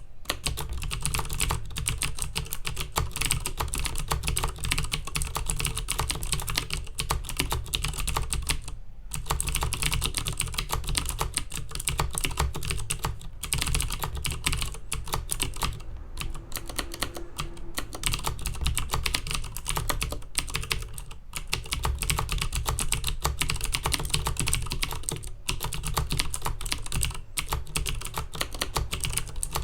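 Fast, continuous typing on a Filco Majestouch Minila Air mechanical keyboard with clicky Cherry MX Blue switches, a dense stream of key clicks broken by a few brief pauses.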